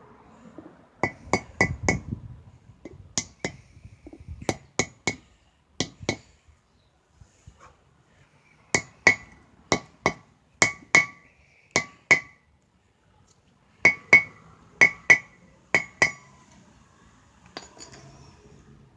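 Hammer tapping a grease seal into a brake rotor hub: sharp metallic strikes in short groups of two to five, each with a brief ringing note.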